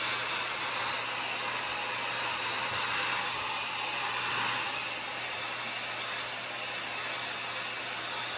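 Handheld hair dryer running: a steady rush of air with a faint low hum. It drops a little in level about five seconds in.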